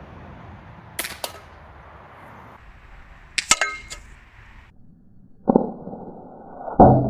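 Hatsan Jet .25-calibre PCP air pistol firing with a sharp pop, followed at once by a ringing metallic clang as the pellet hits a tin can, about three and a half seconds in. A couple of lighter clicks come about a second in. From about five and a half seconds, music with heavy percussive hits takes over.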